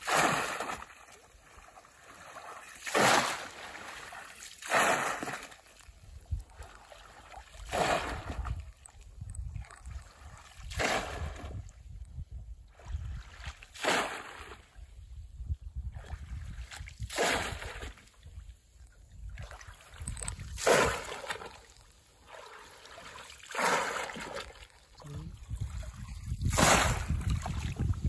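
A bamboo plunge-basket fish trap slammed down into shallow pond water again and again, a sharp splash every two to three seconds, about ten in all, with sloshing between.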